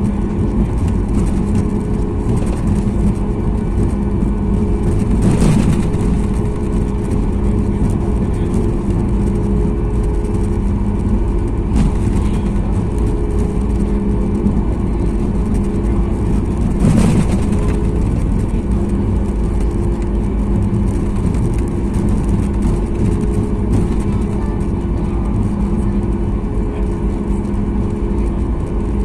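Cabin noise of a Boeing 737 MAX 8 on the ground before takeoff: a steady low rumble with an even hum from the engines and air system. Two brief louder swells come about five seconds in and again about seventeen seconds in.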